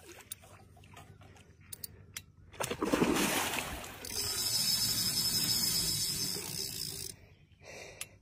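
A hooked fish thrashing at the water's surface: a burst of heavy splashing about two and a half seconds in, then about three seconds of continuous hissing splashing that stops abruptly.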